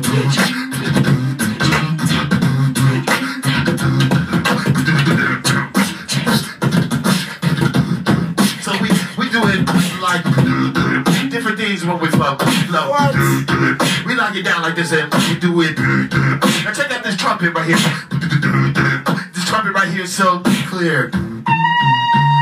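Two performers beatboxing live into microphones: a fast, steady rhythm of vocal drum clicks, snares and bass hits. Near the end the beat gives way to a held pitched note that wavers slightly.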